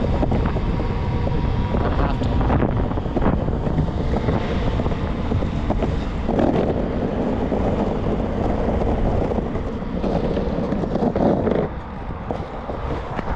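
Wind buffeting the microphone over steady rumbling road noise while riding an electric skateboard along a road; the noise drops off near the end.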